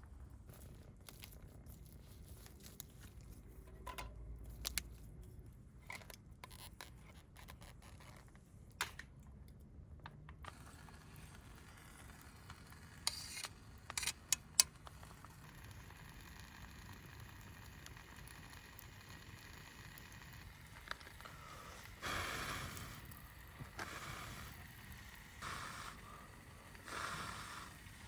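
Camp cooking sounds: scattered clicks and light scrapes of utensils against a pot, over a faint steady hiss, with a few longer rustling swells near the end.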